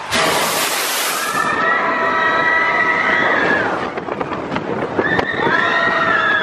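On board a moving mine-train roller coaster: a sudden rush of wind over the microphone as the train speeds along. It is followed by two long, high-pitched, steady tones, the first lasting over two seconds and the second starting near the end.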